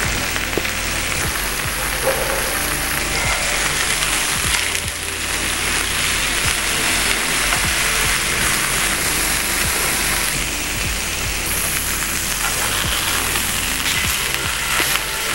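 Beef steak sizzling steadily as it fries in oil and butter in a skillet, with a few light clicks of a fork against the pan. Background music plays underneath.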